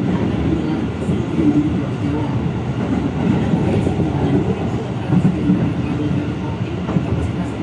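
Inside a moving electric commuter train: the steady running noise of the carriage and its wheels on the rails, with a low hum that comes and goes.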